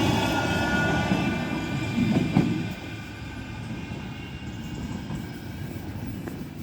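A train passing with a steady whine over its rumble. It dies away about three seconds in, leaving a quieter steady rumble.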